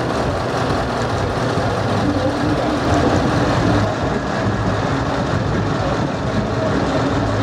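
Steady background din with a low, even engine hum under it, which becomes clearer about two seconds in.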